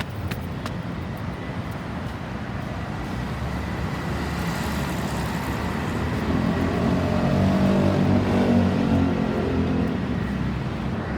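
Road traffic, with a motor vehicle's engine passing close, growing louder to a peak about eight seconds in and then fading.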